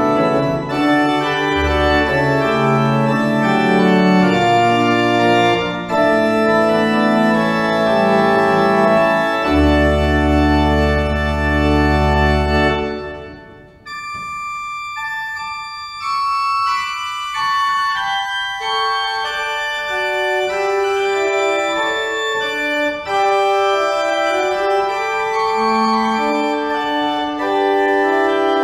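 Church pipe organ playing a full chord passage with deep pedal bass notes, which ends about 13 seconds in and rings on in the reverberant room. After a short gap the organ resumes more softly with a lighter, higher registration of moving notes and no pedal.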